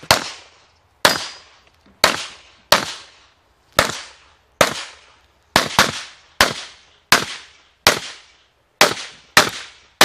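Handgun fired shot after shot during a practical shooting stage: about a dozen sharp shots, spaced roughly every half second to a second with one quick pair near the middle, each trailing off in a short echo.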